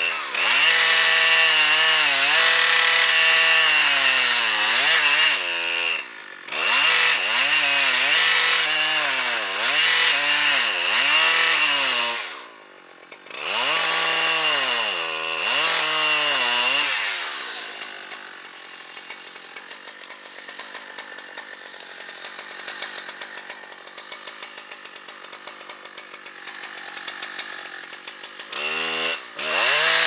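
Large Husqvarna chainsaw at full throttle cutting into a big poplar trunk, the engine pitch sagging and recovering over and over as the chain bites, with two short let-offs. About 17 seconds in it drops to a much quieter idle, then revs back up near the end.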